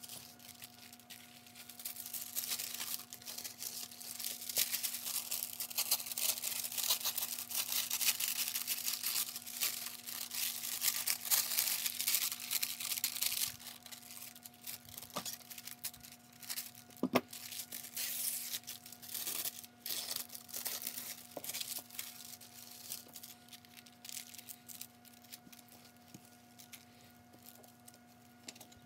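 Thin glassine paper crinkling and rustling as it is handled, loudest for about the first dozen seconds. After that comes quieter paper handling with a few sharp clicks and taps.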